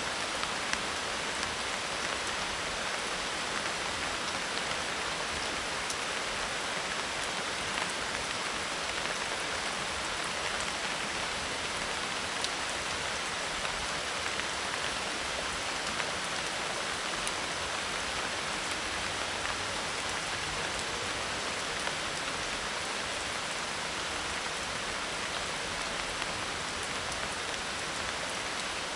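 Steady medium rain falling on a roof of dried leaves, with scattered sharper ticks of single drops.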